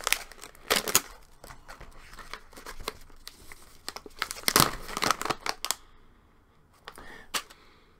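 Resealable plastic popcorn bag being pulled open and handled: crinkling and tearing as the seal comes apart, densest around the middle, then quiet for about a second near the end.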